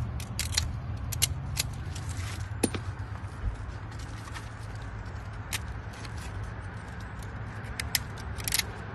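Short scraping strokes and metal clicks of a blade scraping excess paint off brake pads, paint thick enough to keep the pads gripping the rotor. They come in small clusters over a steady low hum.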